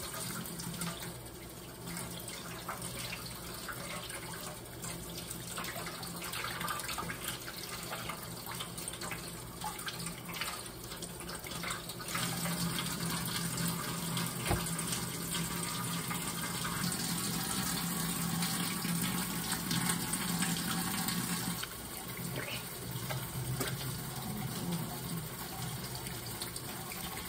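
Kitchen sink faucet running as raw pork chops are rinsed under it, the water splashing over hands and meat into the sink. The flow gets louder for about ten seconds in the middle, then eases back.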